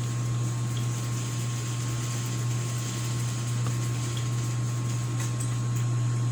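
A steady low mechanical hum with a faint high whine above it, unchanging throughout.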